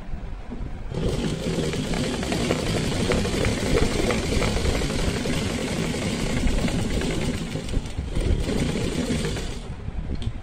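Sewing machine running at speed, stitching a seam through fabric with a fast, even clatter; it starts about a second in and stops shortly before the end.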